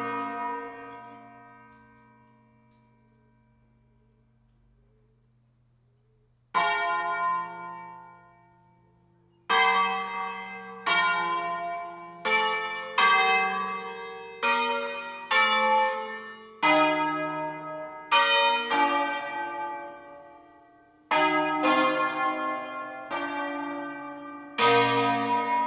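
The eight church bells of the 1894 Fratelli Barigozzi ring in B-flat, swung on their wheels and rung in the solemn 'concerto'. A stroke rings away and a second follows after a pause; then from about ten seconds in the bells strike one after another, roughly one a second, each at its own pitch, with a short break near the end.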